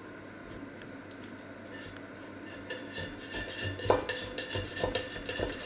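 A steel knife blade scraping and clinking against a stainless steel pot in a run of quick strokes that starts about two seconds in, with the sharpest clink about four seconds in.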